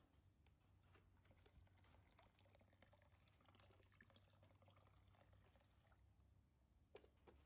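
Near silence: a faint low hum with scattered soft clicks and rustles, and a slightly louder pair of clicks near the end.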